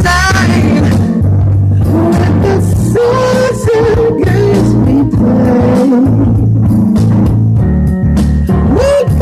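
Live keyboard-led jam: sustained low bass notes and a steady beat under a wavering, bending lead melody line.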